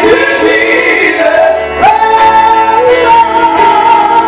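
A woman singing a gospel song into a handheld microphone, amplified through a PA, holding one long high note from about halfway through.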